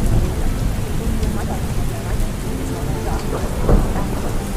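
A steady rain-and-thunder ambience track: heavy rain with a low thunder rumble underneath. Faint spoken affirmations are buried beneath the rain.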